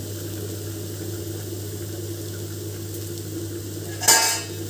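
Spice paste frying quietly in a kadai over a steady low hum. About four seconds in, there is a short, sharp clatter.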